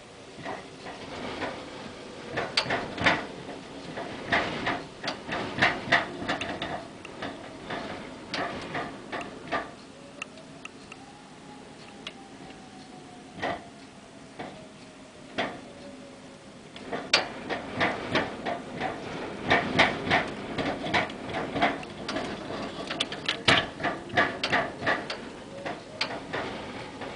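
Rapid, irregular tapping and knocking at a window in two gusty spells of hurricane wind and rain. In the lull between them a faint wind whistle rises and then falls.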